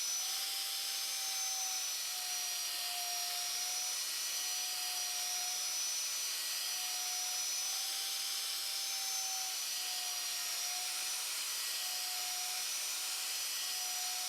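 Surface grinder running, its wheel grinding the radius on a steel forging tool: a steady whine over a hiss, the pitch wavering slightly every couple of seconds.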